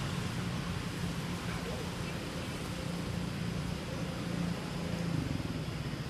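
Steady low rumble of distant motor traffic.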